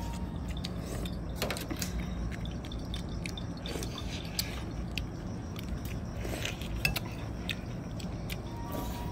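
Eating sounds: biting and chewing meat off a braised pork leg held in the hands, with scattered clicks of spoons and dishes. A steady low hum runs underneath.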